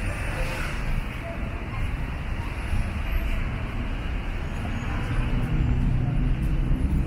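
City street traffic, with a motor vehicle's low engine hum growing louder in the second half as it comes close.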